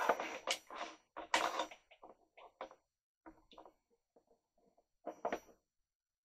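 Hands handling plastic model-kit parts and a small glass bottle of plastic cement on a cutting mat: a run of short, irregular clatters and rubs, busiest in the first two seconds. A few sharper clicks about five seconds in, as the bottle's screw cap is twisted off.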